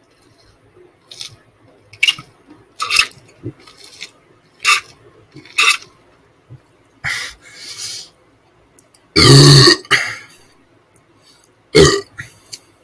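A man gulping down a drink from a plastic cup: about six separate swallows in the first six seconds. Then a long, loud burp about nine seconds in, and a shorter loud sound near the end.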